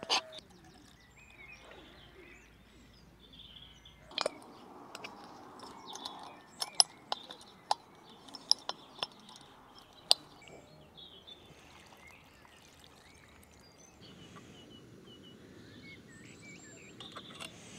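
Sharp clicks and light knocks of camp cooking gear being handled, coming about once a second between roughly four and ten seconds in, over faint birdsong.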